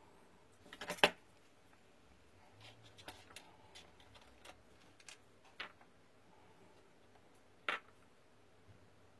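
Small clicks and taps of tools and tiny parts being handled during fine electronics repair work: a quick cluster of clicks about a second in, the loudest, then scattered light ticks and one more sharp click near the end.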